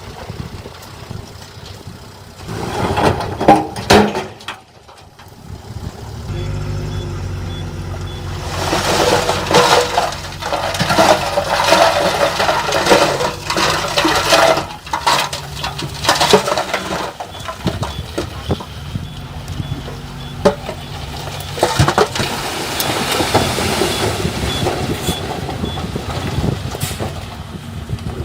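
Heavy diesel construction machinery running, with loud knocks and clattering and crunching of soil and rock being dumped or pushed. An engine comes in after a brief lull about six seconds in, and the clattering is heaviest in the middle.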